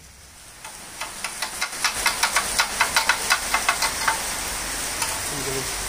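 Steady hiss of falling rain, with a quick irregular run of light clicks and taps for about three seconds in the middle.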